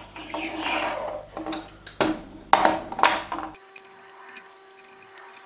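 Hands handling the wiring and plastic fittings of a bulb-and-switch board, giving sharp clicks and clatter with some rustling. About three and a half seconds in this gives way to a faint steady hum with small ticks.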